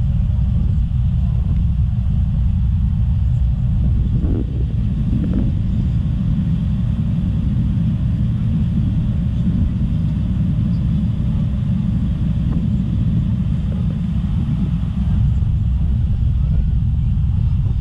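Small ferry boat's engine running steadily, a loud, even low rumble heard from on board.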